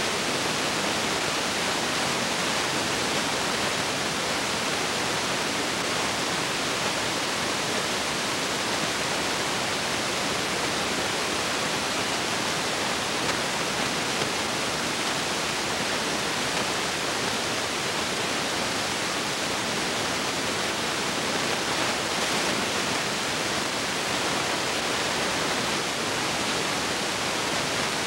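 Steady, even hiss with nothing else in it, unchanged through the picture cuts: the background noise of a film or tape transfer, not sound from the scenes.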